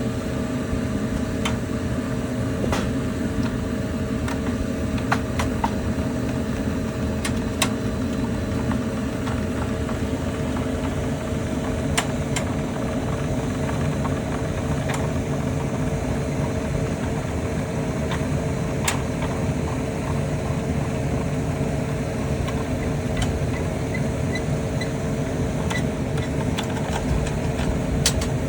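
Steady running noise of a diesel-fired melting furnace's burner and blower, with two constant hum tones underneath. A few short, sharp clicks and knocks come through it now and then.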